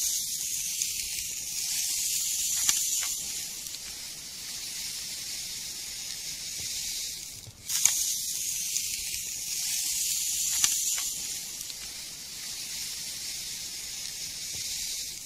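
Fine play sand being scooped and poured with a plastic toy shovel in a plastic tray: a steady, grainy hiss with a few light clicks. It breaks off briefly about halfway through and then starts again.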